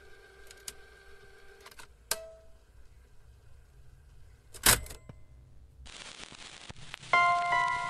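A few sharp mechanical clicks over a faint steady tone, with one loud click about five seconds in. Then a faint hiss comes up, and about a second before the end keyboard music with repeating bell-like notes starts.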